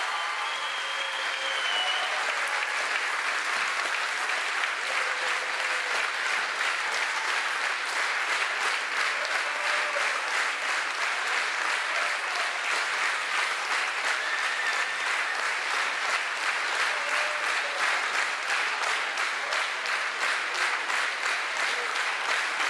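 Audience applauding, the scattered clapping settling into steady rhythmic clapping in unison about a third of the way in.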